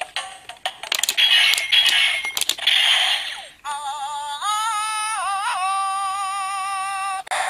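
Electronic Zyuohger DX toy playing its sounds through its small speaker. It starts with about three seconds of clicky effects and noise bursts, then an electronic sung tune that wavers in pitch for about three seconds and cuts off suddenly near the end.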